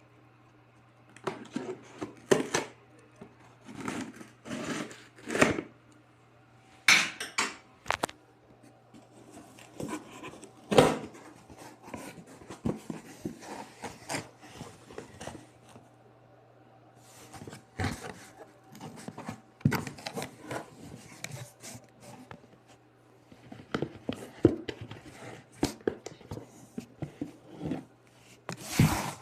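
Creatine tubs and their packaging handled during an unboxing: irregular clicks, knocks and rustles, with a faint steady hum underneath.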